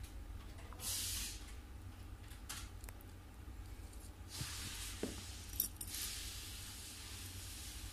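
Handling noises from a small plastic hair trimmer being taken apart by hand. There are brief scraping rustles about a second in and again from about four to six seconds, and a couple of light clicks, over a low steady hum.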